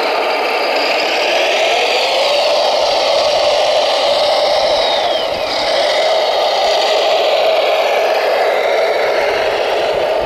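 Radio-controlled scale Volvo L250G wheel loader running and working, a steady whirring engine-like drone. A higher whine glides down in pitch about five seconds in.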